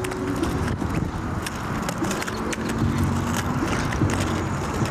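Quad roller skate wheels rolling over a concrete path, a steady rough rumble with scattered sharp clicks.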